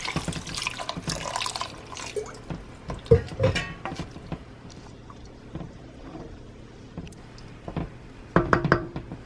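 Water pouring into a cooking pot of sautéed vegetables, then scattered knocks and clinks of cookware, loudest about three seconds in and in a short cluster near the end.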